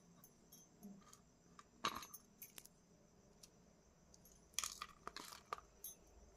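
Kitchen utensils clinking: a few sharp clinks and knocks, one about two seconds in and a quick run of them around five seconds in.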